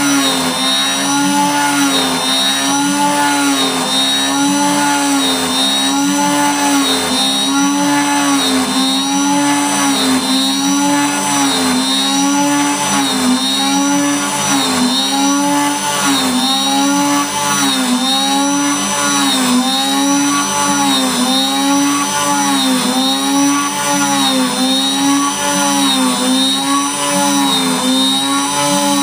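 DIY CNC router spindle, driven by a brushless DC RC airplane motor, running and cutting a wavy groove into a wooden board. It gives a steady pitched drone whose pitch dips and recovers about once a second as the bit follows the zigzag path.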